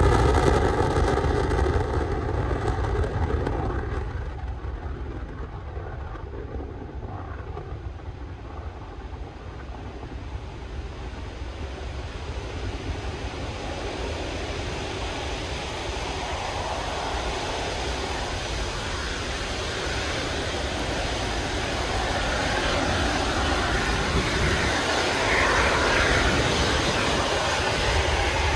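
Atlas V rocket launch noise at close range: a deep rumble, loudest at the start and fading over the first few seconds. It then gives way to a rushing noise that grows steadily as the exhaust cloud blows over the microphone.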